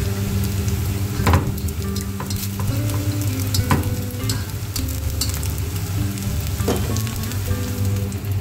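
Spatula stirring cooked rice and minced-meat pilaf in a metal pot, with three sharp knocks against the pot spread through. Soft background music with a slow melody plays underneath.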